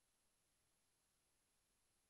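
Near silence: only a faint steady hiss.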